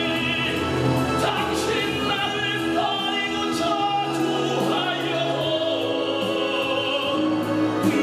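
Male baritone singing a musical-theatre ballad in Korean into a microphone over a recorded orchestral backing track, holding long notes with vibrato.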